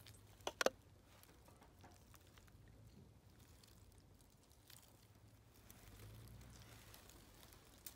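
Faint wet handling sounds as hands pull apart a squirrel carcass, with two short clicks about half a second in.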